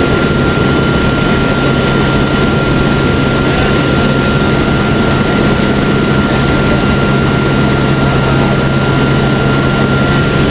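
Cabin noise of a military transport plane in cruise: its turboprop engines drone steadily with a thin high whine, under a constant rush of wind through the open rear ramp door.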